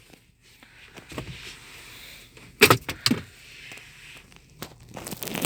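Plastic dashboard trim covers being unclipped by hand, giving sharp plastic clicks and snaps: two about two and a half seconds in, and a quick run of them near the end, over a low hiss of handling.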